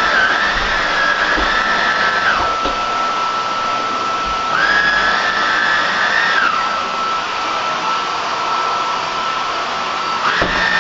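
Hoover WindTunnel Air cordless vacuum cleaner running with a steady high whine; a second, higher tone comes in and glides back down about every four to six seconds, three times.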